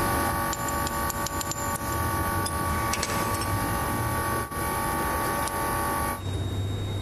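Steady workshop machine hum made of several fixed tones, with sharp metal-on-metal taps and clicks in the first three seconds as a bearing and shaft are worked with a hammer. The hum cuts off suddenly about six seconds in.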